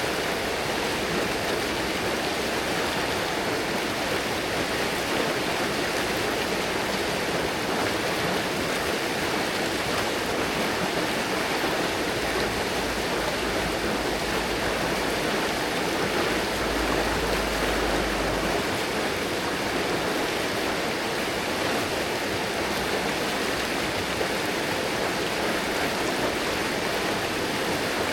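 River water flowing steadily over its bed, a continuous even rush of running water.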